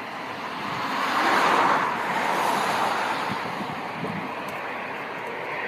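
A road vehicle passing close by: its rush swells to a peak about a second and a half in, then fades away, over a steady outdoor hiss.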